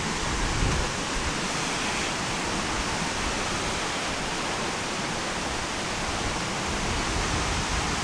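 Steady rush of water from a small woodland waterfall and creek, with a few soft thumps near the start.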